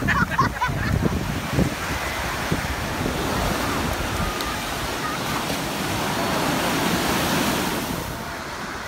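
Ocean surf breaking and washing up the shore as a steady rushing, with wind buffeting the microphone during the first couple of seconds. Faint voices come through now and then.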